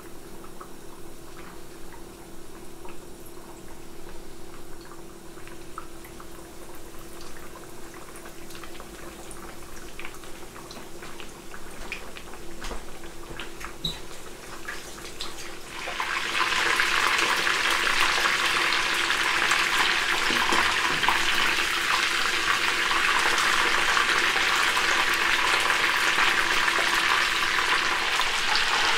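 Panko-breaded chicken cutlets frying in hot oil in a pan. At first there is a light crackle with scattered pops, then about halfway through the sizzle suddenly gets much louder and denser, and stays that way.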